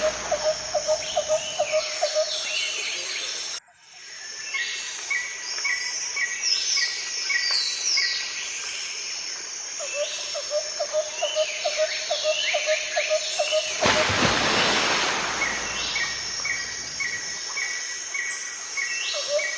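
Birds calling outdoors: rows of short repeated chirps, other sweeping calls and a fast pulsing trill, over a steady background hiss. A louder rush of hiss comes about 14 seconds in and lasts a couple of seconds.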